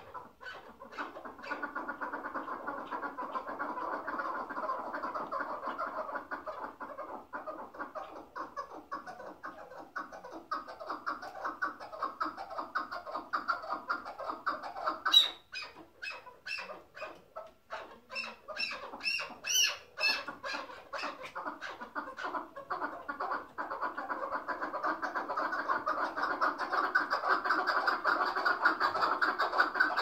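Chukar partridge calling in the 'hıngırmacı' style: long runs of rapid, throaty cackling notes, broken in the middle by a stretch of sharper, higher clicking notes, then rapid cackling again, loudest near the end.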